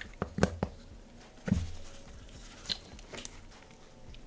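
Small clicks and taps of a pin and parts being worked into a SAR9 compact pistol frame by hand: a quick run of four clicks at the start, a duller knock about a second and a half in, then a couple of lighter ticks.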